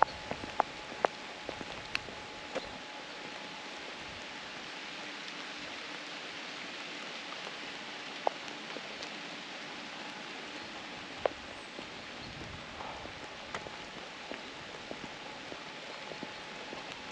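Steady rain falling, with a few louder drops tapping sharply now and then.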